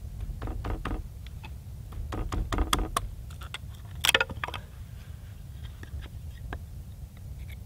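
Knife batoned through a small stick of dry ash with a wooden baton to split kindling. A run of sharp wooden knocks builds to the loudest crack about four seconds in, over a low steady rumble.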